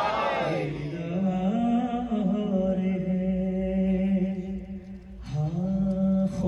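Male chanting of a devotional manqabat: long, steady held notes that step up in pitch twice in the first two seconds, break off briefly about five seconds in, then start again.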